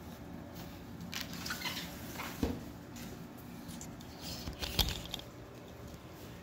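Cardboard game box and folded board being handled: rustling, with a light knock about two and a half seconds in and a louder one near five seconds as the board is set down.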